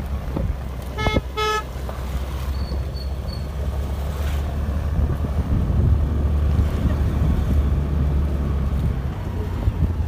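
A ride on a scooter: a steady low engine and wind rumble, broken about a second in by two short horn toots.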